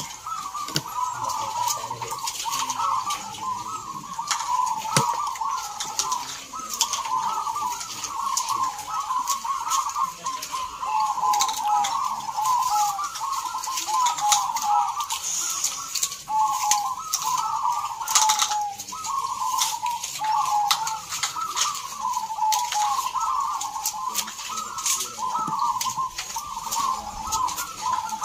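Many zebra doves (perkutut) cooing at once, their repeated coo phrases overlapping in an unbroken chorus. Scattered clicks run throughout.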